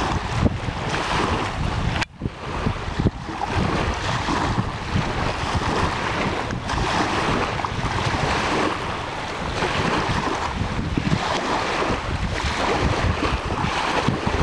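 Wind buffeting the microphone, with small wind-driven waves lapping on the shore; the gusty rumble drops out briefly about two seconds in.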